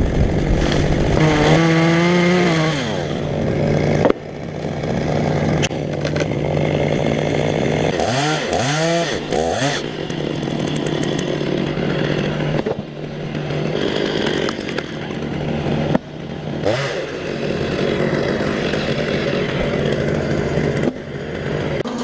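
Chainsaw running and revving up and down several times, with a few abrupt breaks where the sound changes suddenly.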